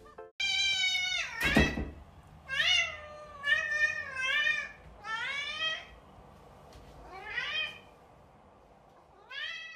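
A long-haired domestic cat meowing over and over, about seven meows that rise and fall in pitch, with a brief thump about a second and a half in.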